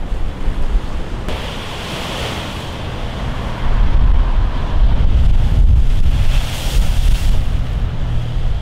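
Heavy storm surf crashing against a concrete sea wall and washing back. Wind buffets the microphone, giving a low rumble throughout. The wash swells about a second in and is loudest through the middle.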